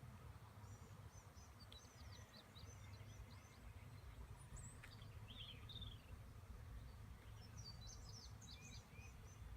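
Faint outdoor quiet with small birds chirping: short high twittering calls in clusters in the first few seconds and again near the end, over a low steady rumble.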